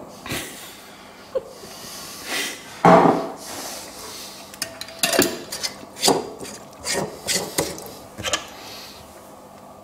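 Glass mason jar and its metal screw lid handled on a kitchen worktop: a series of sharp clinks, knocks and scrapes, loudest about three seconds in, as the lid is screwed back onto the jar.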